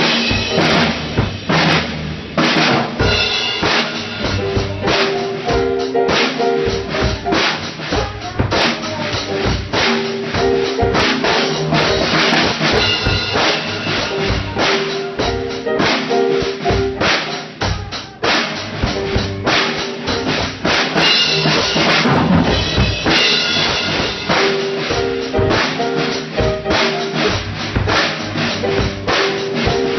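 A band playing, with a drum kit keeping a busy beat of bass drum and snare under held keyboard notes.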